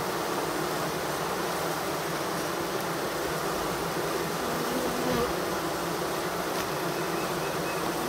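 Honey bees of a freshly caught after-swarm buzzing in a steady hum inside a hive box, with a brief louder drone about five seconds in.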